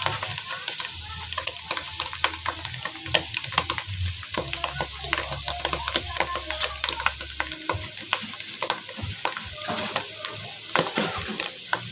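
Sliced button mushrooms sizzling as they fry in a pot, with a wooden spatula scraping and tapping against the pot as they are stirred.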